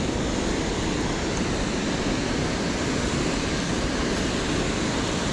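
Steady rushing roar of river water pouring over a low-head dam spillway.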